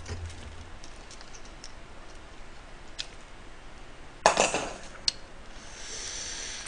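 Steamed oyster shells clicking and clinking as they are picked out of a pot and handled in plastic-gloved hands, with one loud clatter about four seconds in and a soft hiss near the end as a shell is pried open.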